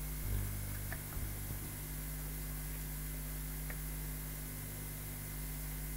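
Steady low electrical mains hum with a constant hiss, the hum briefly swelling about a third of a second in and again near the five-second mark, with a few faint small ticks.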